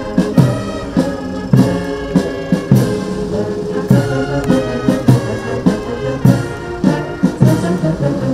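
Military brass band playing a slow, steady piece, brass chords over a drum beat that falls a little under twice a second.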